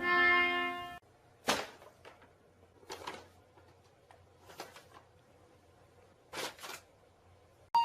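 A held musical tone cuts off about a second in. After it come a few separate soft knocks, one every second or two, in a small quiet room.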